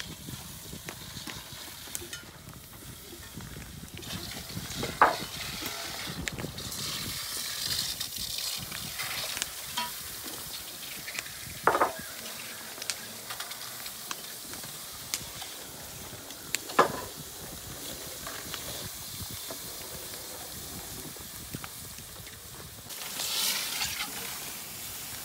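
Water poured onto a red-hot iron wheel tyre sizzling and hissing into steam as the tyre is quenched so it shrinks tight onto the wooden wheel. Three brief sharp cracks stand out several seconds apart, and the hiss swells near the end.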